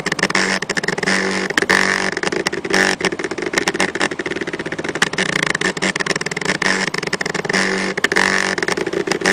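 Stepper motors of a small laser engraver whining and buzzing as they drive the laser head across a PVC card, with a dense rapid ticking and hum tones that switch on and off as the moves change.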